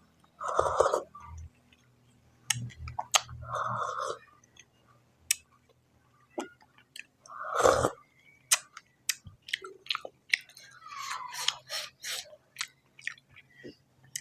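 A person eating pork fat with rice at close range: chewing with wet mouth clicks and smacks. Three louder wet sounds of about half a second each come near the start, around four seconds in and around seven and a half seconds in.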